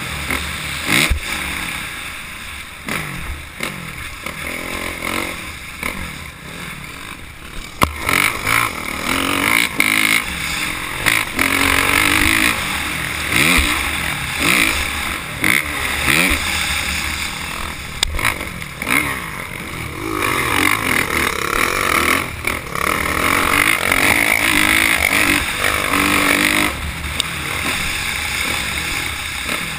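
Motocross dirt bike engine heard from on the bike, revving up and falling back over and over as the rider accelerates and backs off around the track. A couple of sharp knocks stand out, one about eight seconds in and one past halfway.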